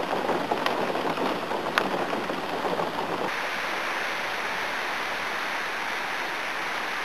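Rain falling, an even hiss with a few sharp drip ticks in the first three seconds; about three seconds in it turns to a smoother, steadier hiss.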